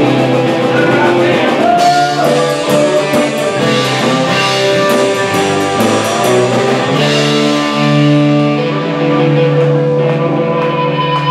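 Live rock band playing an instrumental passage: an electric guitar lead with long held notes, one bent upward about two seconds in, over bass and a drum kit with cymbals crashing.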